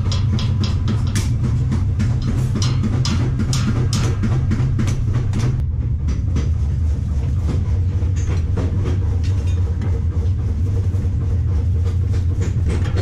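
Metal workshop din: a steady low hum under a quick run of sharp metal clicks and clinks, dense for the first five seconds and sparser after, as steel wheelbarrow brackets and a wheel are handled and fitted.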